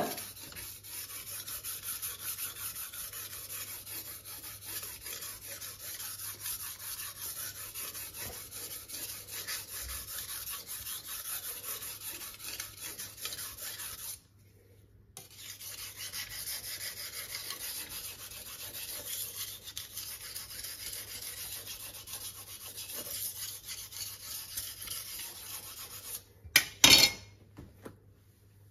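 Steel kitchen knife scraping back and forth on a wet whetstone in steady sharpening strokes on the second side of the blade, with a brief pause about halfway through. Near the end come a few loud knocks.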